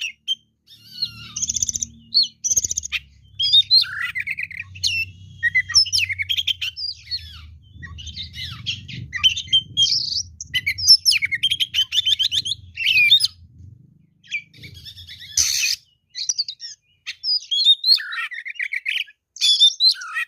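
Oriental magpie-robin singing a loud, continuous, varied song of whistles, chirps and rapid trills, with one brief harsh burst about three-quarters through. A low hum runs beneath the song and stops about three-quarters through.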